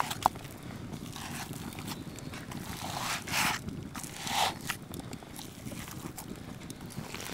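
Granite pestle mashing a soft, butter-like spice paste in a granite mortar: a few soft squelching, scraping strokes, the two loudest a little past three and four seconds in, with a sharp click of stone on stone just after the start.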